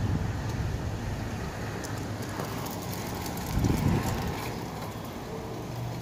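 Gusty thunderstorm outflow wind blowing, with a stronger gust swelling about four seconds in, over a low steady hum.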